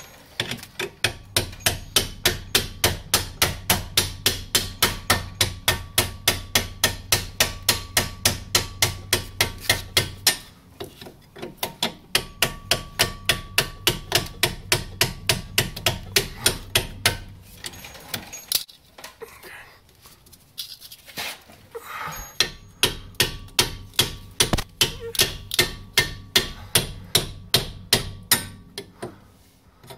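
Rapid, even hammer blows, about four a second, on a steel tool held against the inner metal collar of a car's rear trailing-arm (rear axle) bushing to smash the collar out. The blows come in three runs, with short pauses near the middle and after about two-thirds.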